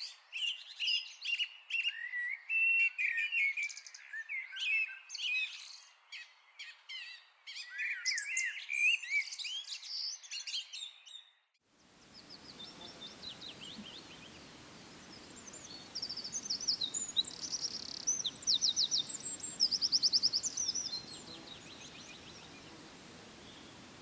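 A chorus of songbirds chirping and calling busily, cut off abruptly about halfway through. It gives way to a steady outdoor hiss, with several seconds of rapid, high-pitched trills near the end.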